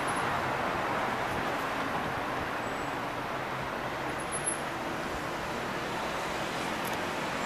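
Steady urban road traffic: a continuous wash of cars moving through a street intersection, with one brief faint high chirp a little past halfway.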